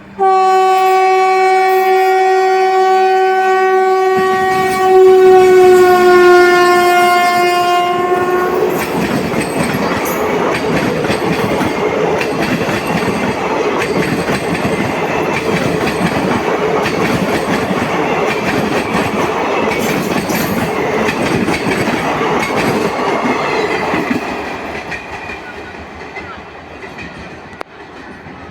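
WAP-4 electric locomotive's horn sounding one long blast of about eight seconds, sagging slightly in pitch near its end, as the train pulls away. Then comes the steady rumble and clatter of the train running on the rails, fading out after about twenty-four seconds.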